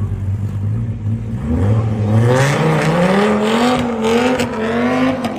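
Dodge Viper's V10 engine idling, then revving up hard as the car pulls away. The note climbs steadily in pitch over a few seconds, wavering as it goes, and falls away near the end.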